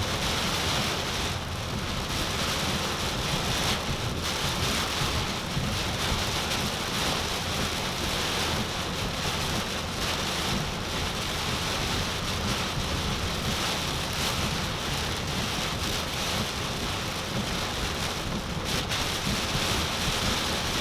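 Extremely heavy rain beating on a car's roof and windshield, heard from inside the car as a steady, dense hiss.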